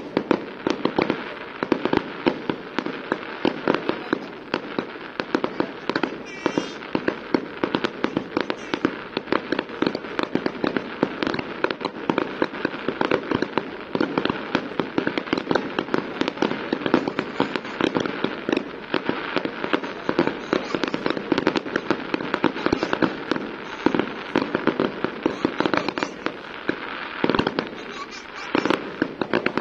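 Fireworks going off in a dense, continuous barrage: sharp bangs from bursting shells several times a second over a constant crackle.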